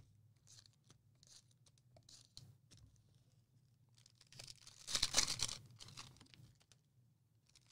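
A foil trading-card pack being torn open, a short crinkly ripping of the wrapper about halfway through, after a few faint handling clicks.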